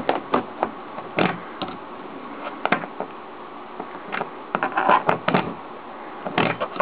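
Irregular knocks, clicks and rubbing from a camera being handled close against a surface, with a busier cluster of knocks a little past the middle.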